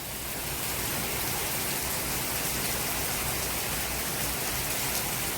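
Steady rain of large drops pouring down, an even, dense hiss with no break.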